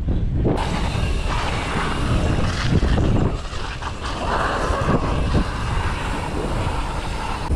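Wind rushing over an action camera's microphone on a moving bicycle, a steady loud rumble with no speech.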